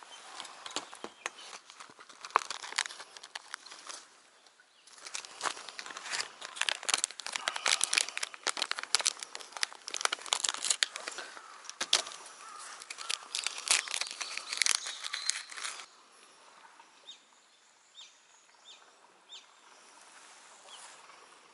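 Crinkling and rustling of a thin plastic soft-lure packet being torn open and handled, in dense runs of crackles with a short lull about four seconds in. It stops about three quarters of the way through, leaving a quiet stretch.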